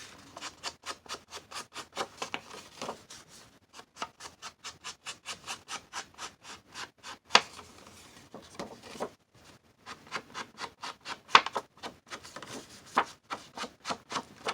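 Rapid, even rubbing strokes, about five a second, of an ink pad or ink blending tool on paper while distress ink is applied to a journal page, with brief pauses and a couple of sharper taps.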